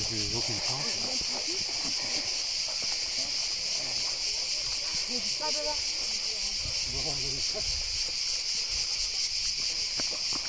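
Insects chirring in the scrub: a steady high buzz with a fast, even pulse, which breaks off near the end.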